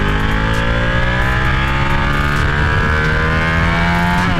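Ducati Panigale sportbike engine under hard acceleration, its note climbing steadily in pitch as the bike speeds up. Right at the end the revs drop and waver, which fits an upshift that lands in neutral.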